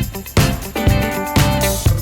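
Upbeat background music with a steady beat of about two beats a second.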